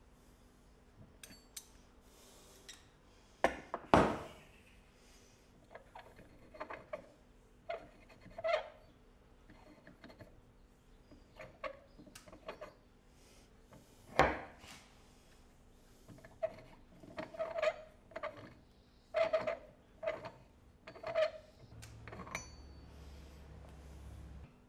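Metal parts of an antique beer hand pump being taken apart by hand: sharp metal-on-metal clinks and knocks, loudest about four seconds in and again near the middle, between short rubbing scrapes as the linkage pieces are worked loose.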